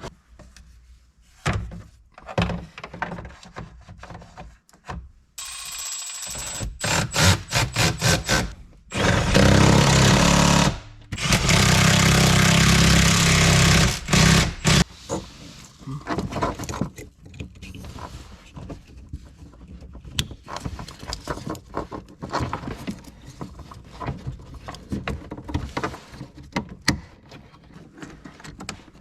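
Clicks and knocks of plastic dash parts and fasteners being handled and fitted, with a rapid run of knocks about six seconds in, then a power driver running in two loud stretches of a few seconds each near the middle.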